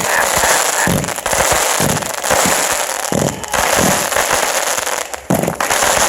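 Loud fireworks display: a dense, continuous crackle with repeated booms going off in quick succession.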